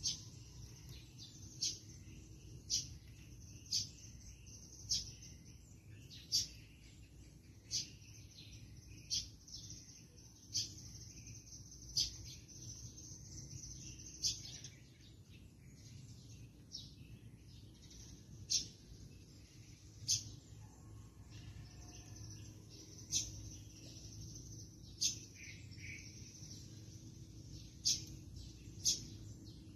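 A small bird chirping over and over, single short sharp chirps about every one to two seconds, over steady background noise.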